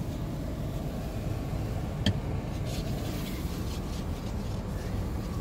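Steady low rumble of a car heard from inside the cabin, with a single sharp click about two seconds in.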